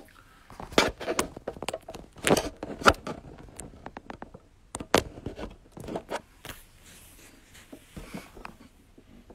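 Handling noise from a hand-held smartphone: irregular clicks, knocks and scrapes of fingers and clothing rubbing on the phone, busiest in the first three seconds, with a few more about five and six seconds in, then thinning out.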